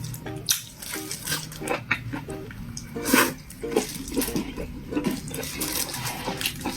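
Close-up eating sounds: a person chewing food with wet mouth sounds and irregular smacks and clicks.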